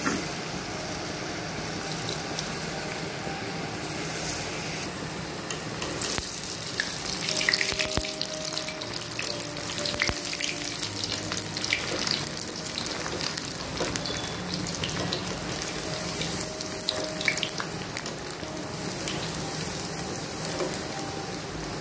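Batter-coated potato fries sizzling and bubbling in hot oil in a kadhai, deep-frying on high flame. A wire mesh skimmer stirs them, with scattered clinks and scrapes against the pan, most of them between about six and twelve seconds in.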